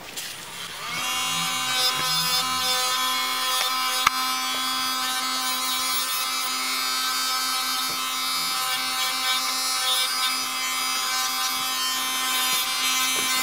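Electric nail drill running with a thick ceramic bit, a steady whine with a light grinding as it files the gel arches of a nail. It starts about a second in, with one brief click partway through.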